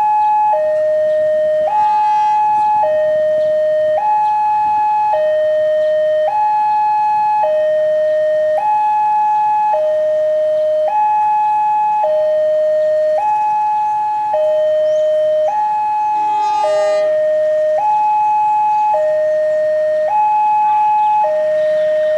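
Railway level-crossing warning alarm sounding: an electronic two-tone signal alternating steadily between a higher and a lower tone about once a second, warning that a train is approaching. A brief, higher, many-pitched sound cuts in about seventeen seconds in.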